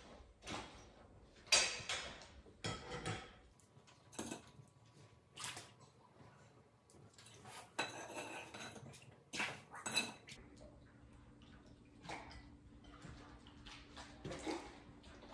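Quiet, scattered clinks and knocks of small hard objects being handled, a dozen or so spread unevenly with pauses between them.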